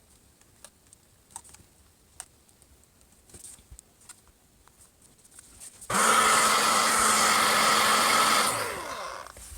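A hot-air blower switches on about six seconds in with a loud, steady rush and hum. It runs for about two and a half seconds, then winds down with a falling pitch as it is switched off. It is heating the phone's glass to soften the screen adhesive.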